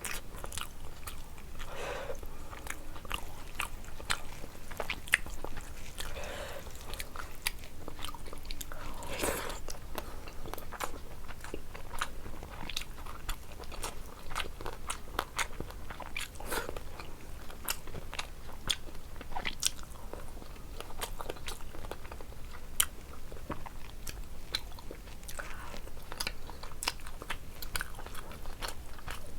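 Close-miked chewing and biting of food, with many short crunches and mouth clicks throughout.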